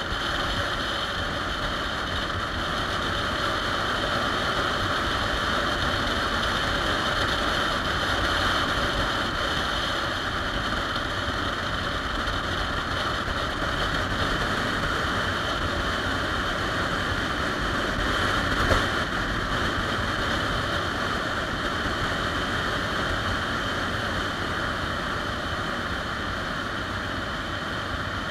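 Steady wind rush and engine noise from a 2013 Triumph Rocket 3 Touring, a 2.3-litre inline-triple cruiser, running at road speed, picked up by a camera mounted on the bike. A single brief knock about two-thirds of the way through.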